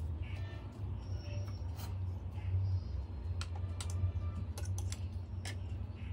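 Close-up eating sounds: instant noodles slurped off a fork and chewed, with many sharp, wet mouth clicks, over a steady low hum.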